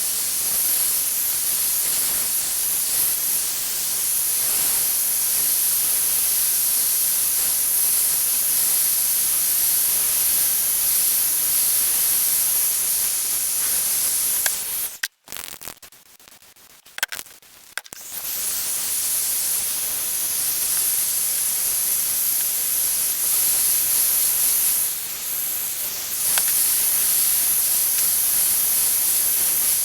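Steady hissing spray, most likely spray paint going onto the restored pliers, stopping for about three seconds midway and then starting again.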